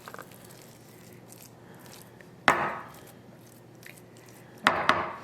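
Kitchenware knocking on a counter or bowl: one sharp knock about halfway, then two or three quicker knocks near the end.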